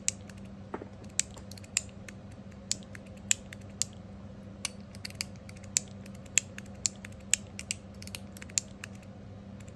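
Copper mechanical fidget slider worked back and forth: a run of sharp metallic clicks, irregularly spaced at about one to two a second, as the steel block snaps over its spring-loaded 2.7 mm detent balls and strikes the ends of the track plate.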